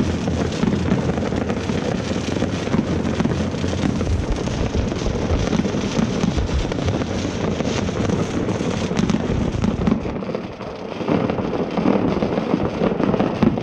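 New Year's fireworks going off all over a city: a dense, unbroken barrage of overlapping bangs and crackling from many rockets and firecrackers. It eases briefly about ten seconds in, then picks up again.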